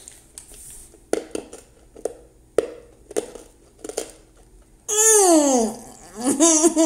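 Wet mouth clicks and smacks of someone chewing salty candy, then a loud groan of disgust that falls in pitch for about a second. A second wailing groan begins near the end.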